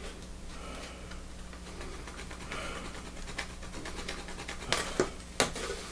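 Faint handling noise of a sheet of tin flashing being held and marked with a pencil: light scratching and rustling, with a few sharp ticks near the end, over a low steady hum.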